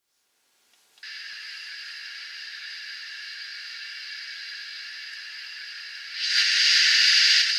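DCC sound decoder of a Graham Farish N gauge Castle class steam locomotive switched on, playing steady standing-engine steam hiss through the model's small onboard speaker. The hiss starts about a second in and grows much louder about six seconds in.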